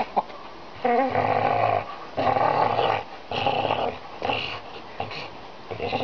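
Pit bull growling in a series of bursts, each up to about a second long, while gripping and tugging a hanging fishing buoy in her jaws: play growling.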